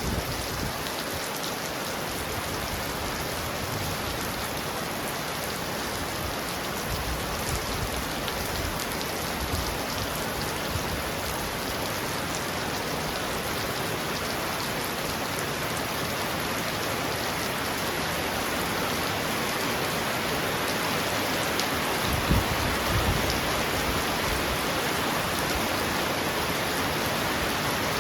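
Heavy rain pounding steadily on a roof, with a brief low rumble of thunder about three-quarters of the way through.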